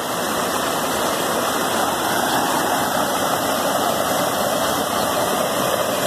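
Steady rushing of a waterfall's stream pouring over rocks.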